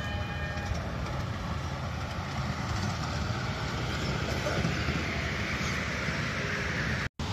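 A miniature ride-on train passing close by: the end of a steady multi-note horn toot in the first second, then the steady rolling noise of the locomotive and loaded passenger cars running along the small-gauge track. The noise grows fuller as the cars pass and cuts off abruptly just before the end.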